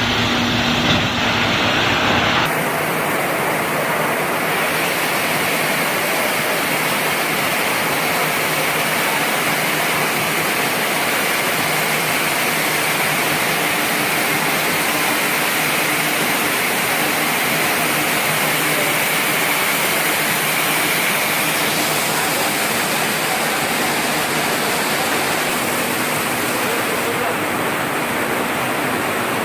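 Industrial turnover basket washing machine running with a steady, loud rush of spraying water. A low rumble underneath drops away about two seconds in.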